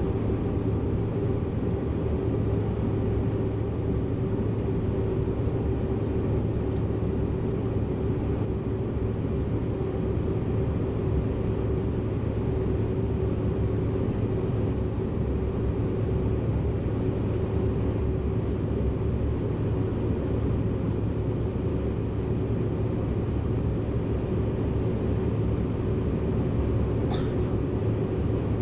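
Steady cabin drone of a Bombardier CRJ900 airliner, its rear-mounted turbofan engines running at constant power, with a steady low hum and a steady mid-pitched tone under the noise. Two faint ticks, one about a quarter of the way in and one near the end.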